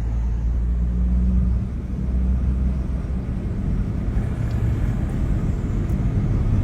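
Motor vehicle running at road speed: a steady low engine rumble with road and wind noise.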